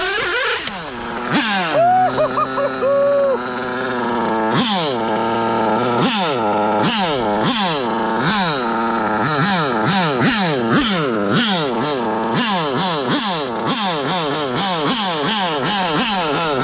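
Picco nitro engine of a 1/8 GT8 on-road car (Mugen MGT7) breathing through a Reds EFRA 2113 tuned pipe, running high and loud. The car goes by and settles to a steady note, then from about four seconds in the engine is blipped over and over, about two quick revs a second, while the car stands still.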